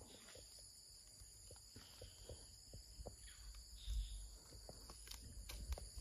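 Faint, steady chirring of insects, with scattered small clicks and a soft low thump about four seconds in.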